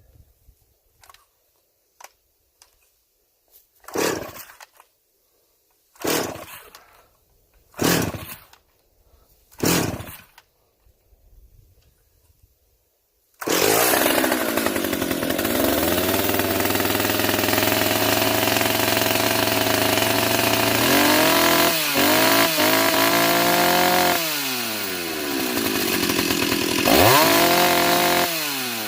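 Stihl 028 AV Super two-stroke chainsaw being pull-started: four tugs on the starter rope about two seconds apart, then the engine catches about halfway through and runs, its revs dropping and rising several times. It was slow to restart, which the owner puts down to air in the fuel line or too little gas in the carb.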